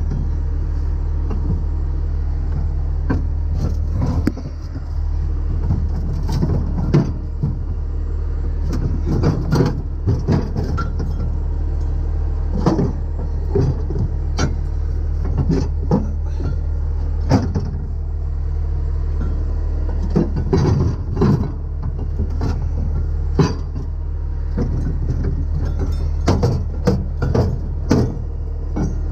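A truck engine idling steadily, with irregular metallic clanks and rattles of chains and hooks being handled on the tow truck's rigging.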